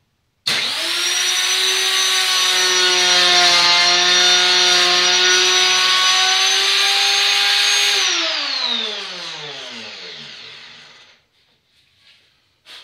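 Router switched on and running at full speed with a steady high whine while its 3/8-inch cove bit cuts wood, then switched off about eight seconds in and spinning down, its pitch falling over about three seconds.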